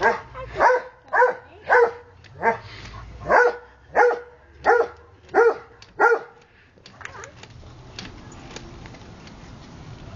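Dog barking repeatedly, about ten barks in a steady rhythm, roughly one every two-thirds of a second. The barking stops about six seconds in, leaving a faint steady hiss with a few small clicks.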